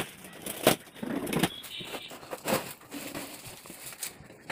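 Large cardboard treadmill carton being handled and opened: several sharp knocks and thumps, the loudest just under a second in, with crackling and scraping of cardboard and packing between them.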